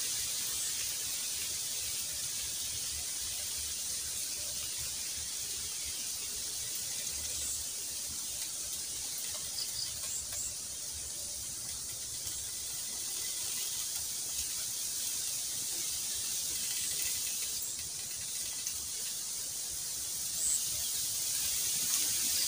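Steady high-pitched hiss of outdoor ambience in a bamboo grove, with a few faint short chirps and a brief rustle near the end.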